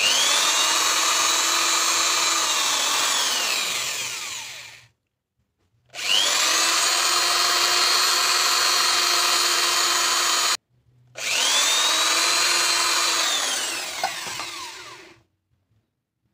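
Small electric hand drill, with a thin length of safety-pin wire chucked as the bit, boring through a small piece of PVC pipe to size the hole to the pin wire. The motor whines up to speed and runs three times. The first and last runs wind down with a falling pitch, and the second cuts off sharply.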